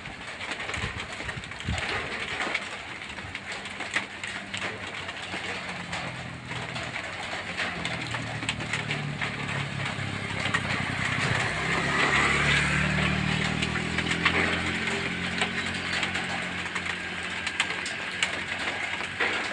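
Heavy rain falling steadily on zinc sheet roofing. In the second half a vehicle engine hums underneath it, loudest about twelve seconds in.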